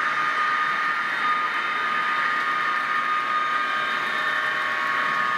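HO-scale model train running on the track: a steady small electric motor whine over a continuous running noise.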